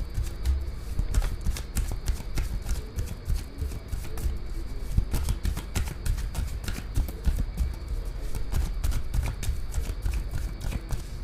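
A deck of tarot cards being shuffled by hand, overhand, with the cards passing from hand to hand: a dense, irregular patter of short card clicks.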